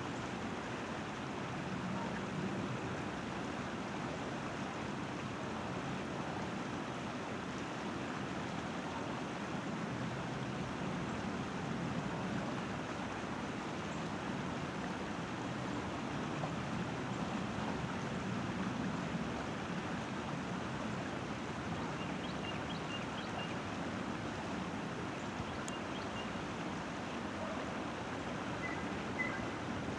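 Steady outdoor ambient noise, an even wash without any clear rhythm or pitch, with a few faint, short, high bird chirps in the last third.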